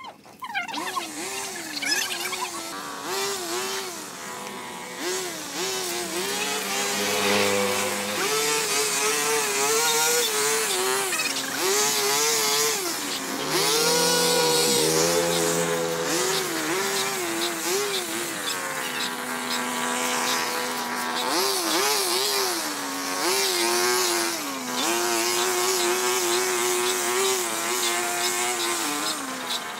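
Small petrol engine of a handheld gas garden tool revving up and down in repeated bursts, held at high speed for a few seconds at a time between drops back toward idle.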